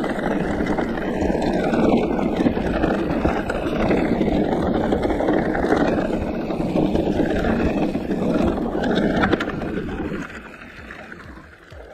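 Giant Reign E+ electric mountain bike rolling over a gravel and grass trail: a steady rush of tyre and wind noise on the camera microphone, dropping off about ten seconds in.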